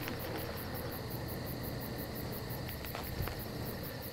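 Crickets chirping in a steady, rapid, even pulse of high chirps, about five a second, over a low steady hum.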